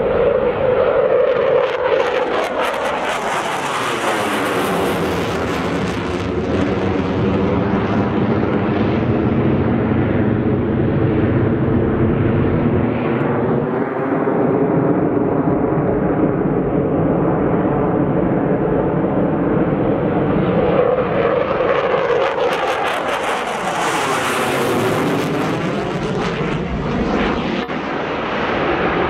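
Saab JAS 39 Gripen fighters' Volvo RM12 turbofans in afterburner on takeoff: continuous loud jet noise. It grows brighter and hissier twice, about four and twenty-four seconds in, with a sweeping phasing whoosh as each jet passes.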